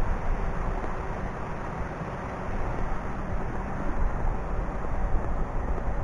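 Wind buffeting the microphone outdoors: a gusty, uneven rumble with no clear tone.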